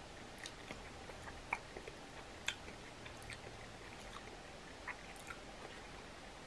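Quiet eating sounds: scattered small clicks and cracks of boiled crab shell being picked apart by hand, with two sharper snaps about one and a half and two and a half seconds in.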